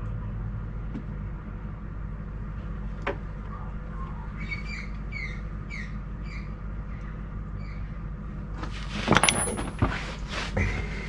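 Handling noises as the rear differential's magnetic drain plug is taken off and wiped with a cloth: a click about three seconds in, then a louder burst of rustling and clinking about nine seconds in. A steady low hum runs underneath, and a run of about six short high chirps comes midway.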